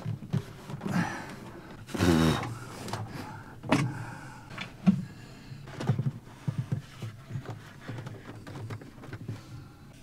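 Handling noise: scattered knocks, clunks and scrapes as a DAB Esybox Mini3 water pump is set in place on its shelf and its hose fittings are handled. A louder, pitched sound stands out briefly about two seconds in.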